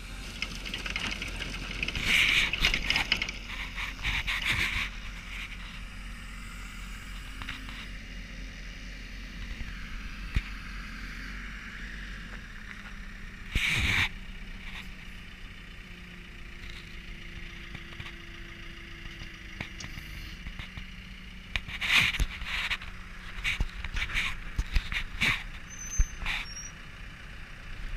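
Attachment-mounted cold milling drum on a JCB machine, running steadily under a low engine hum, with several loud bursts of scraping and clatter as it cuts into asphalt.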